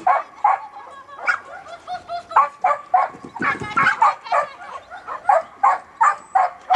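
Croatian Sheepdog barking over and over in short, high barks, about two or three a second.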